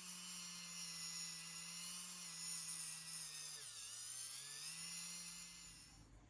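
A small electric power tool's motor whining at high speed. About four seconds in it bogs down briefly under load, with the pitch dropping and then climbing back, and it stops near the end.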